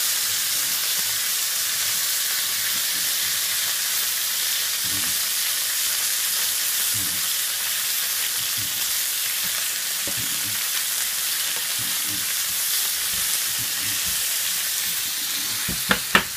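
Steak frying in melted butter in a hot square pan: a steady, loud sizzle as tongs press and move the meat. Two sharp clicks come near the end.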